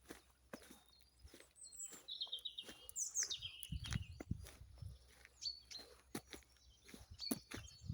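Birds chirping, with a falling call about three seconds in, over scattered clicks and a few low thumps.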